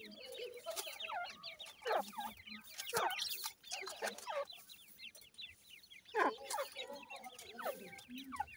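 Teetar (francolin) chicks peeping continuously: many short, high cheeps, each falling in pitch, several a second. A few louder, lower calls stand out about two, three and six seconds in.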